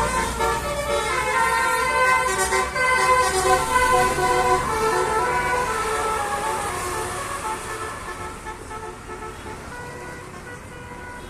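Indonesian basuri-type telolet bus horn playing a tune of quickly changing notes over the low rumble of the bus engine, fading steadily over the last few seconds as the bus moves away.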